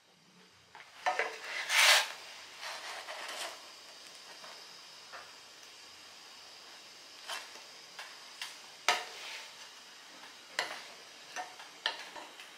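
Wooden spatula scraping and knocking against a frying pan as pizza dough is lifted to check its underside, the loudest scrape about two seconds in and several sharp taps later. Under it, a faint steady hiss of the dough cooking in the dry pan over high heat.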